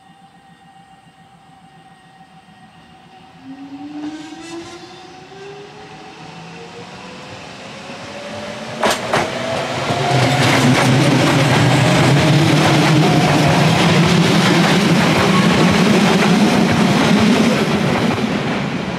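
Nose Electric Railway 3100-series (ex-Hankyu) electric train approaching and passing close by. Its traction motors give a whine that rises steadily in pitch as it speeds up, then wheel and rail noise, with sharp clicks over the rail joints, turns loud for several seconds as the cars go past.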